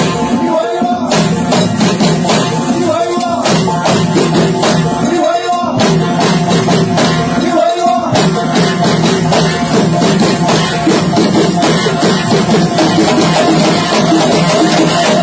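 Live Aissawa troupe music: horns play a sustained melody over a steady beat of drums and percussion.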